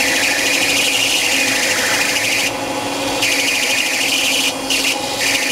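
Electric stand mixer running, its beaters creaming butter in a stainless steel bowl: a steady motor hum under a rough scraping rattle of the beaters against the bowl, which drops out briefly a few times. The butter is being beaten until pale and fluffy.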